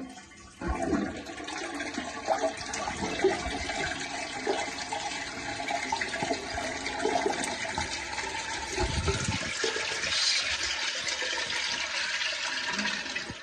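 Toilet flushing: water rushes steadily through the bowl, starting about half a second in, and drops away near the end.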